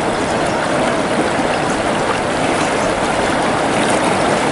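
River water flowing over a rocky bed: a steady, continuous rush of water.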